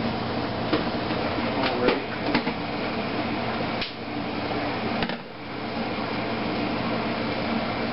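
Steady fan-like hum, with a few light clicks and knocks in the first four seconds.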